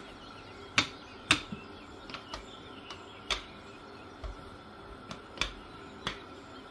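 Stainless-steel rolling pin clicking and knocking as it is rolled back and forth over a stuffed paratha on a silicone mat: about a dozen sharp, irregular clicks.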